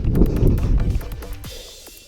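Background music, with a loud low rumble over the first second that fades out toward the end.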